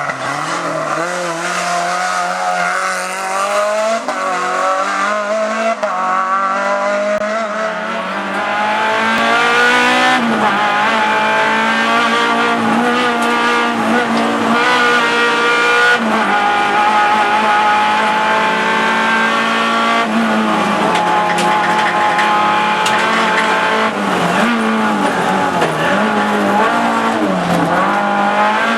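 Race car engine at high revs climbing a hillclimb course. Its pitch rises and drops again and again through gear changes, and it grows louder about nine seconds in as the car comes closer. A steady low hum runs underneath.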